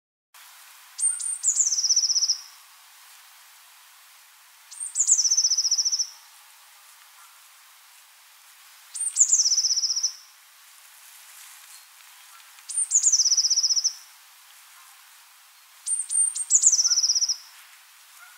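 A small songbird singing the same short song five times, about every four seconds: a few very high notes sliding down into a fast, even trill.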